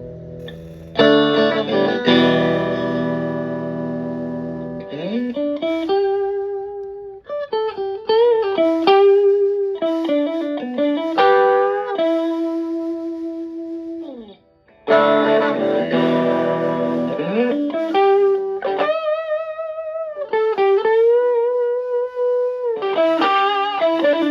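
Stratocaster electric guitar through a Klon Centaur-style overdrive pedal into a Fender Twin Reverb-style amp, demonstrating the pedal's gain range. There are two phrases, each opening with strummed chords left to ring and moving into single-note lead lines with string bends and vibrato.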